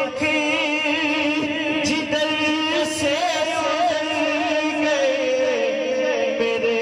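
A male naat reciter singing into a microphone, drawing out long ornamented notes whose pitch wavers and bends, with other voices holding a steady lower note beneath.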